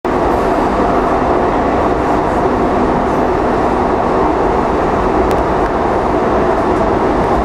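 Steady, loud rumble of a light-rail car running along the track, heard from inside the passenger car, with a single sharp click about five seconds in.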